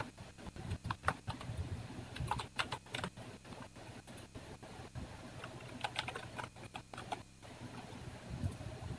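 Computer keyboard keys clicking in irregular bursts of typing.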